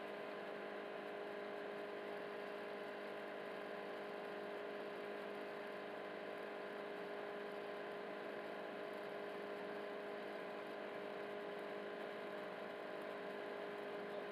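Steady electrical hum with several held tones, from an induction cooktop running under a pan.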